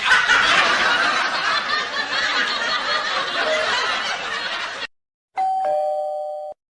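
A few seconds of a dense, crowd-like sound effect that cuts off abruptly. After a short gap comes a two-tone 'ding-dong' house doorbell chime: a higher note, then a lower one.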